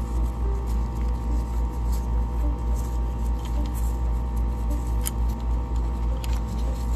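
A steady low hum with a regular throb a few times a second, with faint scattered clicks and scratches from gloved hands working on the heat exchanger fittings.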